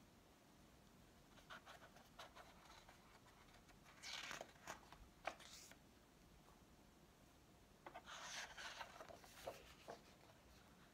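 Pages of a hardcover picture book being turned by hand: faint papery rustling and sliding, in two main bursts about four seconds in and again about eight seconds in, with lighter scratchy brushes before them.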